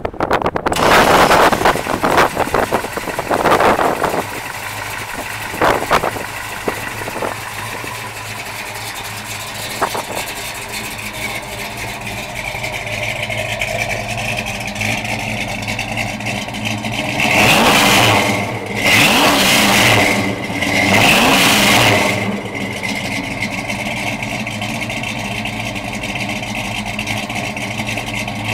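1969 Dodge Coronet Super Bee's 493 cubic inch V8 (a bored-out 440 with Six-Pack carburetors and a hotter camshaft) running through its exhaust. It revs at first and settles into a steady idle, then gets three short revs in a row about two-thirds of the way through before dropping back to idle.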